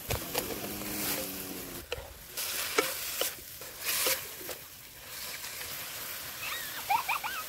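Banana flower sizzling as it fries in a hot metal kadhai, stirred with a wooden spatula that scrapes against the pan several times.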